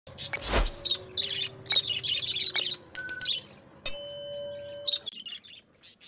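Small birds chirping and chattering, opened by a brief whoosh. About four seconds in comes a bright ringing chime that lasts about a second.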